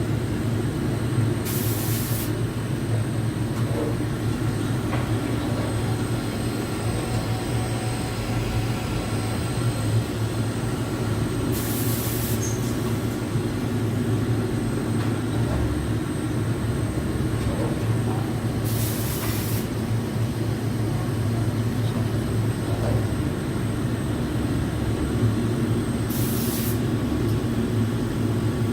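Mikron VCE 600 Pro vertical machining center running with a steady low mechanical hum and a faint high whine. Four short hisses break in about every seven seconds.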